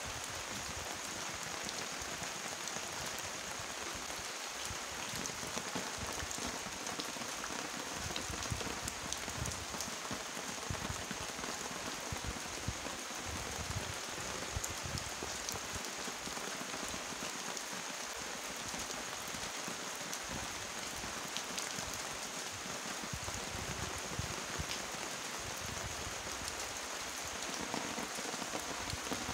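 Steady rain falling, with many small drops striking the leaves of a spiky garden plant.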